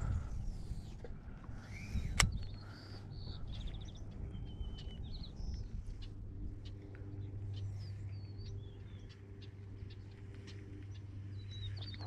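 Small birds chirping in short, scattered notes over a steady low hum, with a single sharp click about two seconds in.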